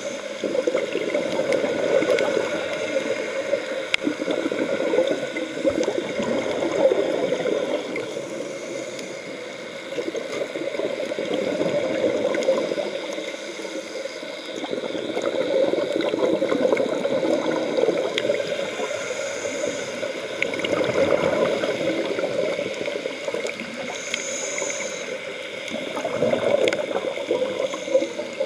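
Continuous underwater bubbling and gurgling, swelling and easing every several seconds, as heard through an underwater camera housing on a scuba dive.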